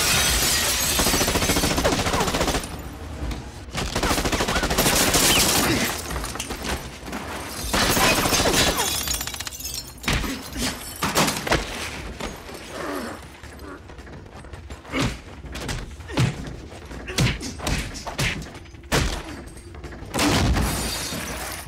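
Movie fight sound effects: a window shattering with glass and debris crashing, then a rapid, uneven run of blows, smacks and thuds from hand-to-hand fighting.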